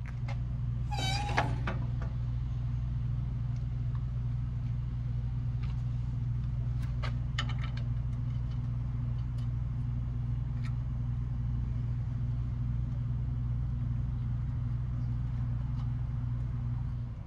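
A steady low hum, with a short squeak about a second in and a few light metallic clicks from hand work on the engine mount area.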